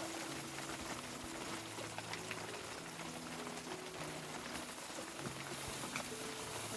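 Steady hiss of heavy rain with scattered drops ticking. Faint low held notes change pitch about once a second underneath.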